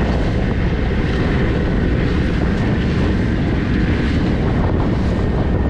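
Small RIB under way, its 50 hp two-stroke Mercury outboard running under heavy wind noise on the microphone and rushing water, a steady loud din.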